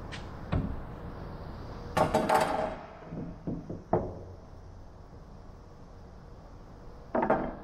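Knocks and clatters of wooden parts and hand tools being handled against a plywood fuselage. The loudest comes about two seconds in with a brief ring, a few lighter knocks follow, and there is another clatter near the end.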